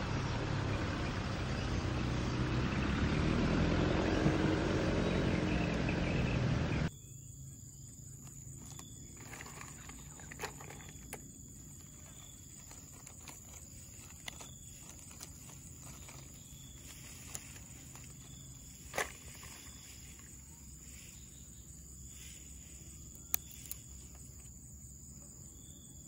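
Wind rushing over the microphone, cutting off abruptly about seven seconds in. Then a quiet background with a thin, steady high-pitched tone and scattered soft clicks and snaps from hands handling and splitting green leucaena (petai belalang) seed pods, one snap louder than the rest.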